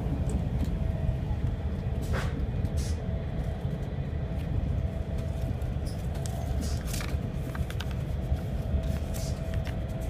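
Steady low rumble of a CRH high-speed train running, heard inside the passenger car, with a faint steady hum over it. A few short rustles and clicks from paper packets and a banknote being handled on the window sill.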